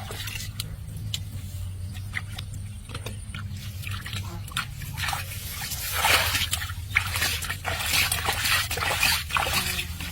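Irregular splashing and sloshing in muddy water, growing busier about halfway through, over a steady low hum.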